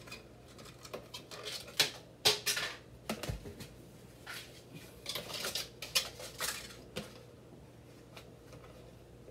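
A plastic hanging planter being handled: its hanger clicks and the pot knocks and scrapes in an irregular string of sharp clicks and rustles, with a dull thump about three seconds in.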